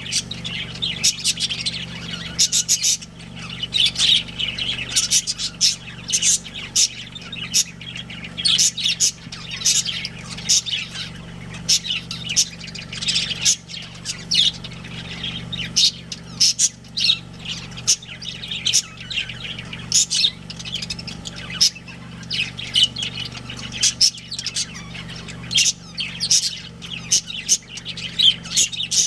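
Budgerigars chattering without pause, a dense run of quick, sharp chirps and squawks overlapping one another.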